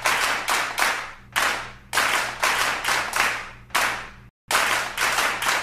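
Rhythmic hand claps, about two a second, each with a short ringing tail, broken by a brief dropout a little over four seconds in.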